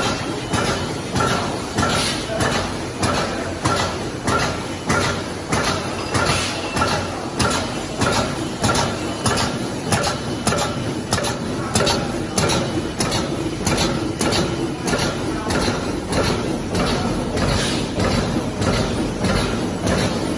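Automatic bag-making machine running, with a steady rhythmic clatter of about two strokes a second over a continuous mechanical whirr as the plastic film is fed through.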